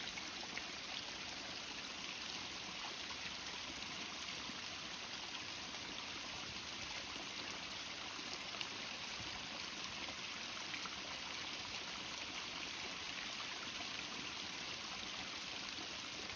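Running water, a steady even rush of flowing and splashing water.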